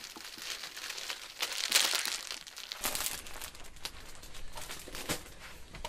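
Plastic-wrapped bundles of pocket tissue packs crinkling as they are picked up and carried, a run of small crackles that peaks about two seconds in.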